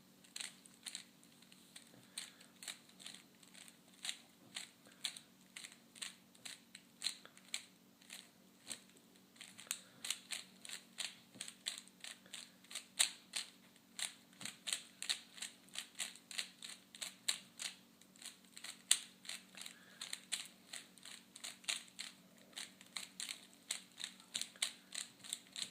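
Rubik's Cube being turned rapidly by hand during a timed solve: a continuous run of plastic clicks and clacks as the layers rotate, a few per second, getting busier about ten seconds in.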